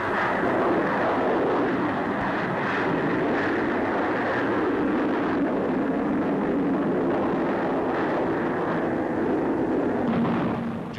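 Jet noise from the de Havilland DH.110's two turbojets at take-off power as it lifts off and climbs away, a steady, dense rushing sound. It is dull and without treble, as on an old newsreel soundtrack.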